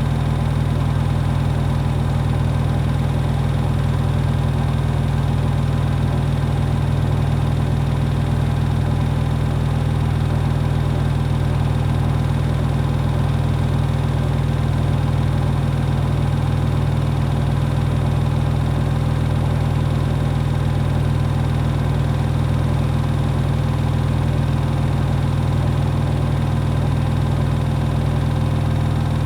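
Hoover HW411AMC washing machine on its final spin, its drum spinning at a steady high speed with an even, unchanging hum.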